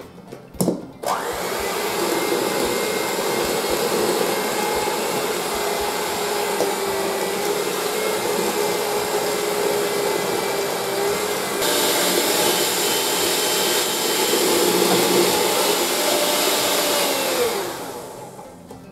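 Electric hand mixer running, its beaters whirring through batter in a stainless steel bowl with a steady motor whine. It switches on about a second in and winds down with a falling pitch near the end.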